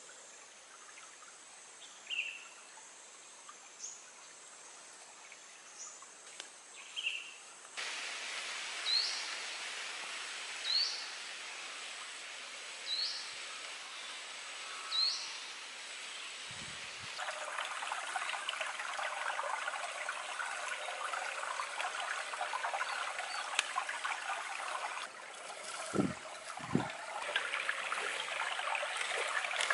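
Running stream: a steady rush of water with a small bird giving short rising chirps every couple of seconds. The water noise grows louder and denser partway through, and two dull thumps come near the end.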